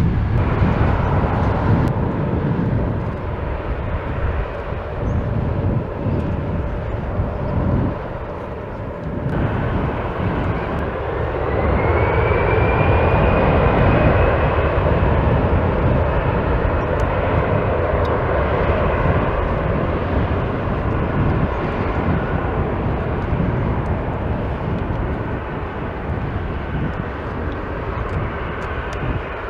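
Airbus A321-211's CFM56 turbofan engines running loud on the runway. About ten seconds in they spool up to takeoff thrust: a rising whine that levels into a steady high tone over the deep engine rumble during the takeoff roll.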